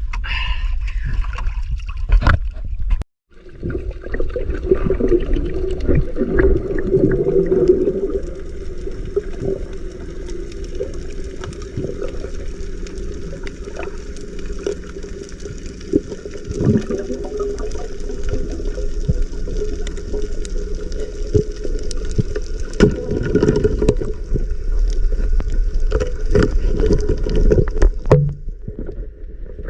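Water noise with a steady low rumble, a constant tone-like hum and scattered sharp clicks.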